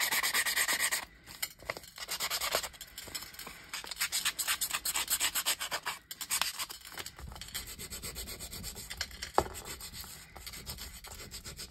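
Nail file rasped quickly back and forth along the folded edges of paper, roughing and fraying them to age the sheet. The strokes are dense and loud for the first few seconds, then come lighter and more spaced, with a single sharp tick about nine seconds in.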